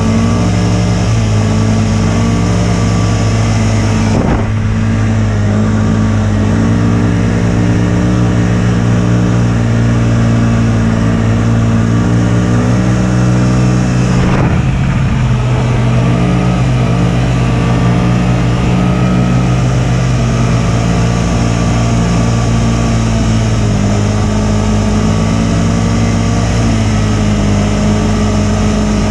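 Snowmobile engine running steadily under way, its pitch rising and falling a little with the throttle, with a brief knock about four seconds in and another about fourteen seconds in.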